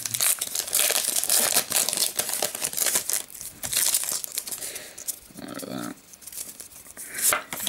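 A Pokémon trading card booster pack's wrapper crinkling and tearing as it is torn open: a dense crackle that eases off after about five seconds, with one more short crackle near the end.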